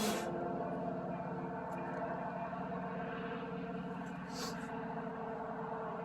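A steady motor hum, like a running engine, with a brief hiss at the start and another about four seconds in.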